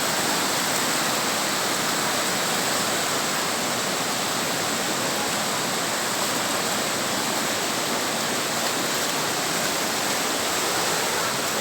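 Steady rushing of a river in flood, swollen by storm rain.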